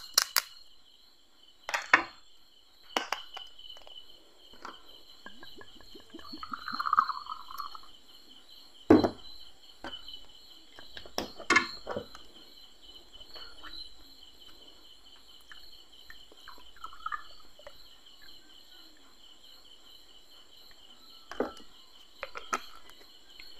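Crickets chirping steadily, over the handling sounds of a small glass whiskey bottle: clicks as its cap is opened, a short pour into a glass, and knocks on the table. The loudest is a thud about nine seconds in.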